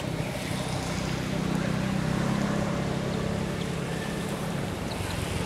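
Steady low drone like a running motor, with a rushing noise over it; a few short high chirps near the end.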